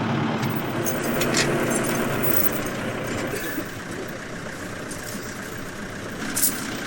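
Excavator engine running steadily, with a few short sharp clicks.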